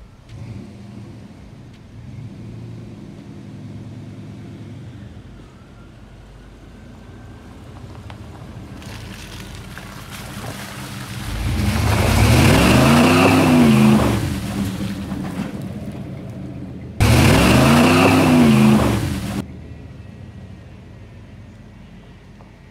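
1993 Chevy K1500 pickup driving through a mud hole, its engine revving up and back down twice with tires churning through the mud. The engine grows louder as the truck comes close.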